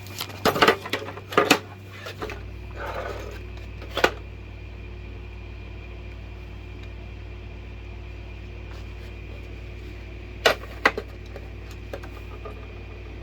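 Sharp clicks and knocks from the parts of a hot air plastic welder being handled and fitted together: a quick cluster at the start, one a few seconds later and two near the end. A steady low hum comes in about two seconds in and runs on underneath.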